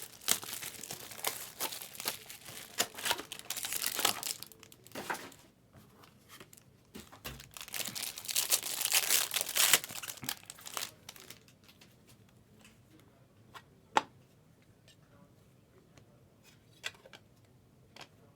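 Plastic wrapping of a trading-card box crinkling and tearing as it is ripped open, in two spells of dense crackling. Near the end come a few light clicks and taps as the cards are handled.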